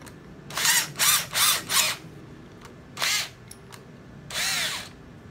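Cordless hammer drill in drill mode, its motor run with no load in about six short trigger pulls. Each pull spins up and winds back down.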